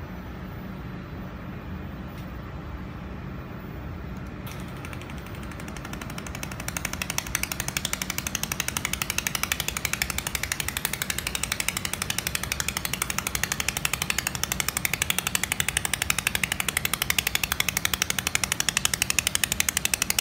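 Pulsed laser welding machine firing on aluminium plate: a rapid, even train of sharp ticking pulses sets in about six seconds in and stops abruptly at the end, over a steady machine hum. A hiss starts just before the pulses.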